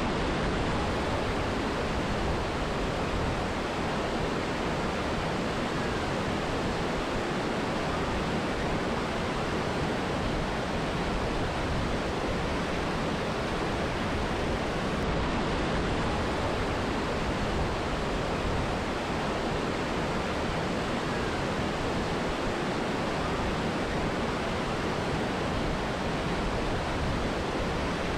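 Mountain river and waterfall rushing: a steady, even wash of water noise that does not change.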